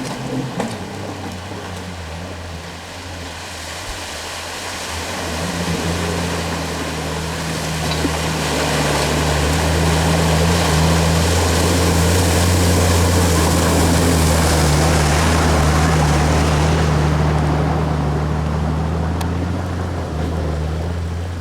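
Off-road 4x4's engine running steadily under load as the vehicle drives through a water crossing. Rushing, splashing water swells for several seconds in the middle and dies away near the end.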